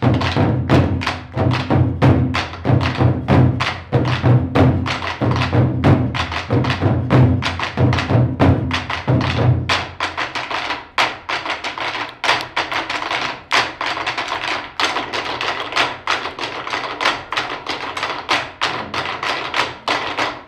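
A drum ensemble playing the Korean dongsalpuri rhythm on large barrel drums with sticks, in fast, dense strokes. About halfway through, the deep drumhead strokes drop out and only sharp, dry stick clicks carry the rhythm; the deep strokes come back at the very end.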